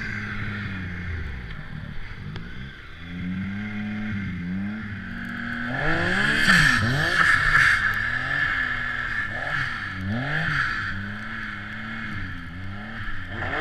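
Turbocharged Yamaha SRViper M-TX snowmobile engine running under the rider, its pitch holding fairly steady at first, then rising and falling over and over with the throttle from about six seconds in.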